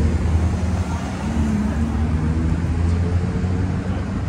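City street traffic: a steady low rumble of vehicle engines, with faint held engine tones over it.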